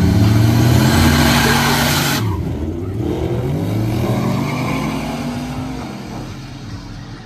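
Drag-racing cars launching off the line and accelerating hard down the strip. The engines rev up in pitch, drop back at each gear change and climb again, then fade as the cars pull away.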